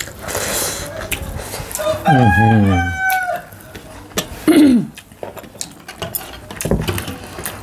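A rooster crowing once, about two seconds in, for roughly a second, followed by a short falling call; eating and dish clicks sound around it.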